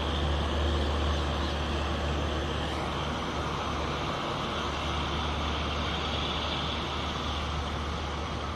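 Steady low rumble of diesel locomotive engines, easing slightly as the train moves away down the line.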